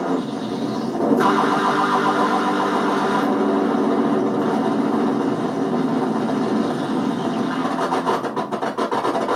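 555-timer polyphonic keyboard synth playing a dense cluster of held tones through an echo module. The tones shift suddenly about a second in and again around three seconds. Near the end the sound breaks into a rapid pulsing stutter.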